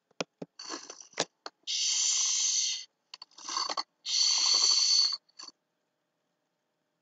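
A few short clicks, then two long, hissing breaths of about a second each, close to the microphone, with a weaker breath between them.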